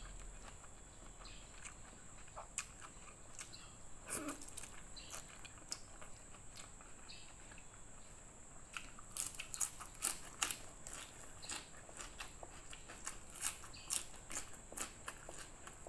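Close-up mouth sounds of eating: chewing soft fried noodles, then crunching raw leafy greens. Sharp crisp crunches come in a quick run in the second half.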